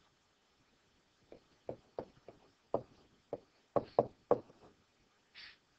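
A series of about ten sharp, irregular taps and knocks on a hard surface, bunched closest together in the middle, followed near the end by a brief scratchy swish.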